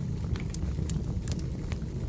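Wood fire burning: several sharp crackles and pops from the logs over a steady low rumble of the flames.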